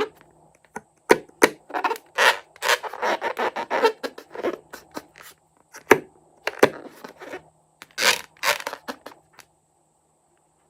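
Slime-making handling sounds: a dense series of scrapes, clicks and sticky crackles as the slime ingredients are worked and mixed. They stop about a second before the end.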